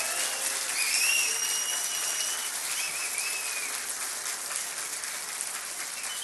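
Audience applauding, peaking about a second in and easing off slightly toward the end, with a few high whistles over it in the first three seconds.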